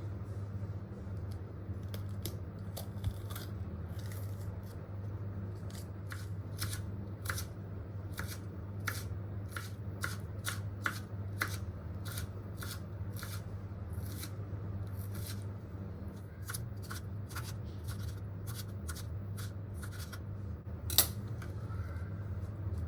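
Vegetables being cut: a run of irregular sharp snips or knife cuts, a few a second, with one louder click near the end, over a steady low hum.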